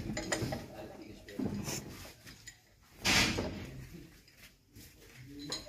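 Metal parts and hand tools knocking and clinking as parts are fitted on a stopped marine diesel engine, with a short louder burst of noise about three seconds in.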